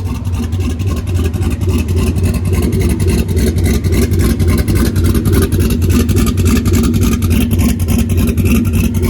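A drag car's engine idling close by, loud and pulsing evenly at about six beats a second.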